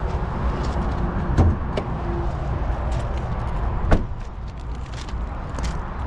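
The hood of a Ford F-150 pickup being handled and opened: two sharp clunks, one about a second and a half in and a louder one near the four-second mark, with small clicks and rattles over a steady low rumble.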